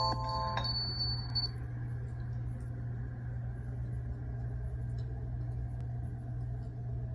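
Doorbell chime ringing out: a few rising bell-like notes that fade within the first second and a half. A steady low hum follows.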